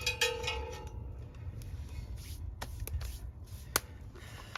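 A few sharp snaps of wood kindling for a cooking fire, over a steady low rumble; the loudest snap comes near the end.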